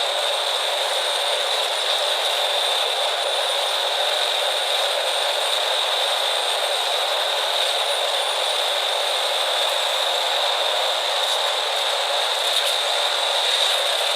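Heavy machinery running with a steady, even mechanical noise and rattle, and a strong high hiss. It holds level throughout, with no separate strokes or changes.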